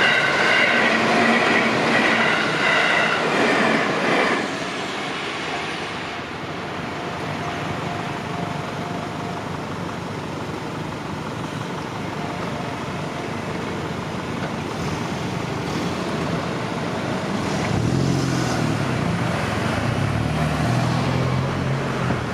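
Electric passenger train passing a level crossing: loud, with high ringing tones, for about the first four seconds, then a steady rolling noise. A low hum that steps in pitch comes in near the end.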